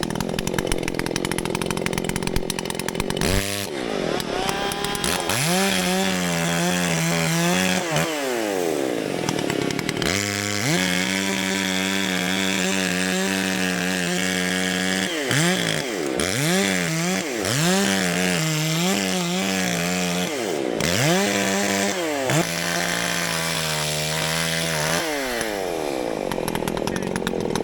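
Two-stroke chainsaw cutting through a downed tree. It idles at first, then from about three seconds in runs at full throttle in long bursts. Its pitch drops and climbs back as the chain bites and clears the wood, and near the end it falls back to idle.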